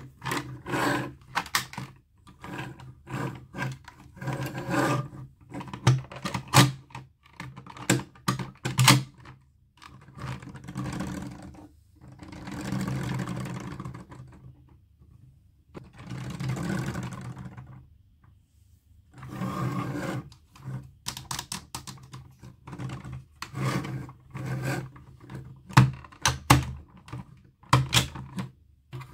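Hands unwrapping and handling plastic toy packaging: a quick, uneven run of clicks, taps and crinkles, with two longer rustling sweeps around the middle and a short lull after them.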